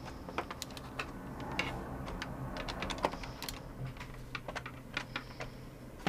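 Typing on a computer keyboard: irregular keystroke clicks over a low steady hum.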